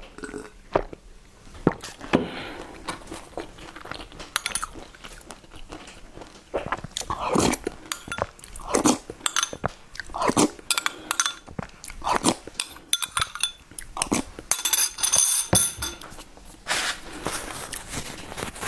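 Close-miked mouth sounds of drinking and eating: swallowing, then wet slurps and smacks as liquid is spooned from a bowl into the mouth, with many small clicks. Near the end, a tissue rustles against the mouth.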